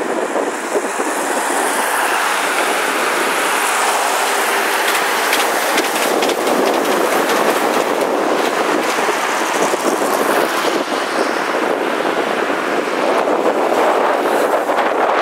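Steady noise of road traffic, with a monorail train passing on its elevated track.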